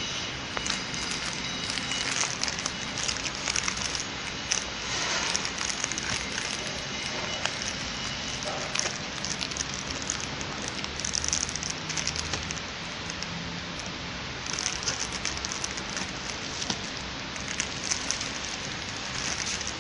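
Clear plastic packaging film crinkling as film-wrapped stacks of cups are handled: a dense, irregular crackle.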